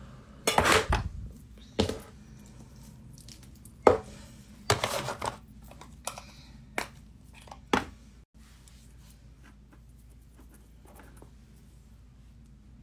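A short puff of breath blown over a makeup brush, followed by a few scattered sharp clicks and taps of the brush and makeup items being handled.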